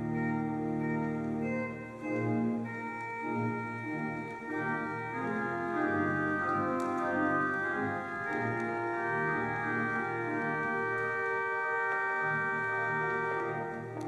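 Church pipe organ playing slow, sustained chords.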